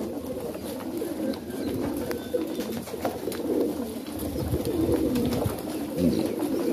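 Highflyer pigeons cooing, several birds overlapping without a break.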